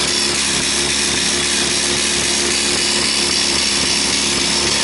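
HP 2564 line printer printing a self-test pattern at 600 lines per minute: a steady, continuous mechanical running sound.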